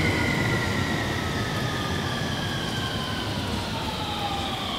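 521 series electric train's traction motors and inverter whining as it brakes to a stop at the platform, several tones falling slowly in pitch over a low rumble.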